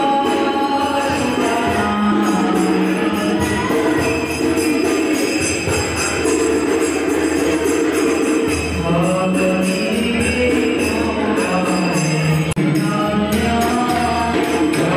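Devotional song with singing and a steady beat, carried by rapid jingling of small bells or a tambourine, to which people dance.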